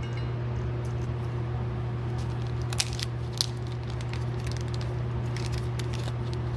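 Light clicks and taps of small carburetor parts and tools being handled, a few scattered sharp ones, over a steady low hum.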